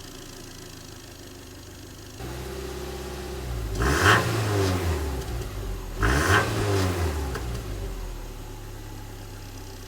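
Stock exhaust of a 2006–07 Subaru Impreza's 2.5-litre flat-four idling, then revved twice, each rev climbing and falling back to idle.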